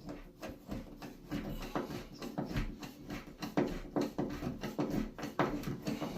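Irregular light knocks, taps and clicks, a few each second, from handling hardware and tools at the wall.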